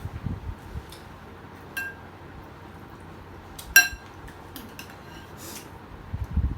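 Cutlery clinking against dishware during a meal: two ringing clinks about two seconds apart, the second louder, with soft low thuds near the start and end.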